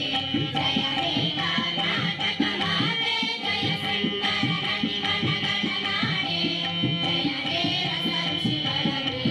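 Music with drumming, keeping a steady beat.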